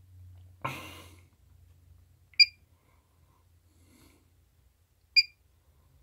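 Two short electronic key beeps, about three seconds apart, from bench test gear as its front-panel buttons are pressed. A short breathy puff just under a second in, over a faint steady low hum.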